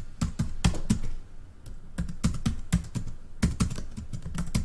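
Computer keyboard typing: a fast, uneven run of key clicks, easing off briefly a little over a second in, then picking up again.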